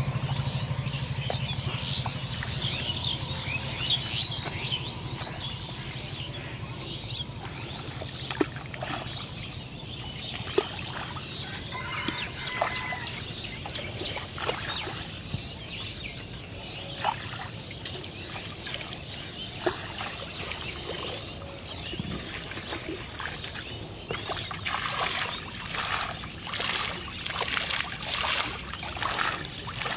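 Pond water splashed repeatedly, about one splash a second, through the last several seconds. Earlier, birds chirp over a low engine hum that fades away in the first few seconds.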